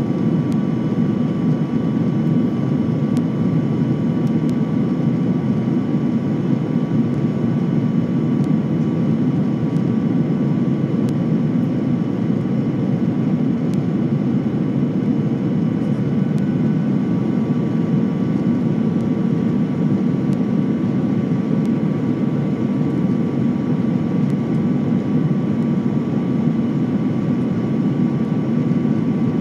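Jet airliner cabin noise on the approach to landing: a steady rumble of engines and rushing air heard from inside the cabin, with a faint steady high whine over it.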